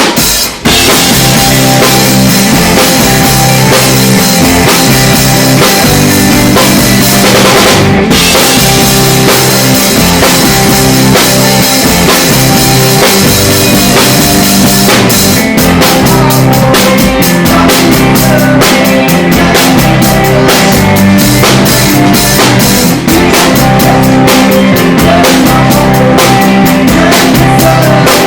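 Live rock band playing, the drum kit loud and close, with kick and snare driving the beat over sustained bass and guitar. From about halfway through, the drums switch to a fast, even pattern of strokes.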